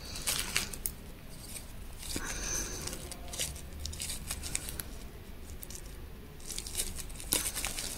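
Soft, intermittent rustling and scratching of hands working a crochet hook through gold thread and yarn stitches, with a few brief scratchy scrapes.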